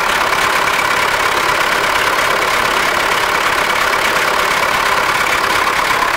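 MTZ-80 tractor's D-240 four-cylinder diesel idling steadily, heard close up from the engine bay.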